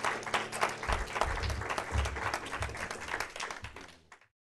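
Audience applauding, fading out shortly before the end.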